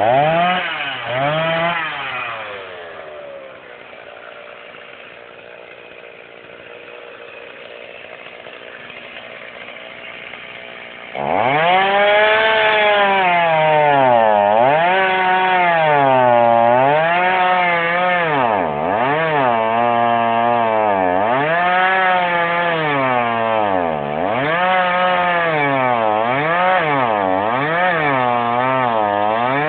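Stihl MS 290 Farm Boss two-stroke chainsaw. It revs at first, then drops back to a low idle for several seconds. About eleven seconds in it jumps to full throttle and cuts into a log, and its engine note keeps dipping and climbing back as the chain is loaded in the wood.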